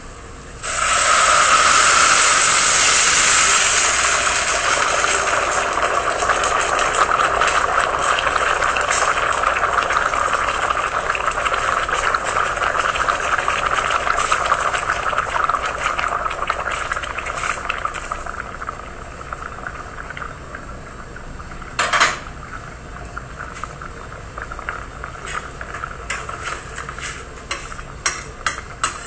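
Water poured onto hot rice in a saucepan: a sudden loud sizzle starts about a second in, then slowly dies down into a crackling simmer. There is one sharp knock about two-thirds of the way through.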